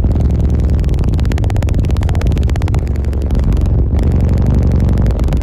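Very loud bass from a car-audio system of fourteen Sundown Audio subwoofers playing inside the vehicle, heard as a heavy, distorted low rumble that overloads the microphone.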